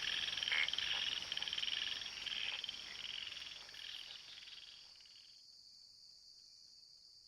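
Frogs calling in a chorus of fast-pulsed, rattling trills that fade out about five seconds in, over a steady high-pitched insect drone.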